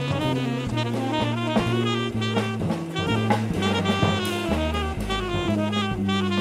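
Live jazz trio: tenor saxophone playing quick, running lines over a bass line and a drum kit.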